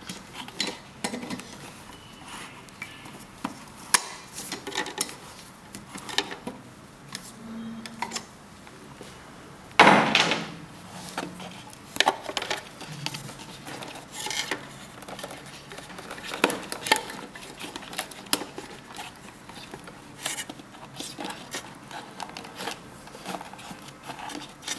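Scattered small metallic clicks and clinks as screws, nuts and wire terminals are handled and fitted on an electric water heater's flange heating element and thermal cutout, with one louder knock about ten seconds in.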